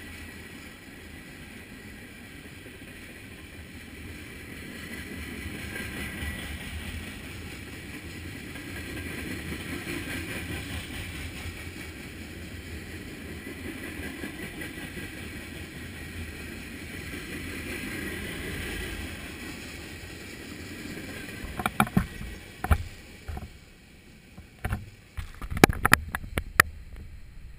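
Freight cars rolling past on the track, a steady rumble and rush of steel wheels on rail that eases as the end of the train goes by. Near the end a run of sharp knocks close by is the loudest sound.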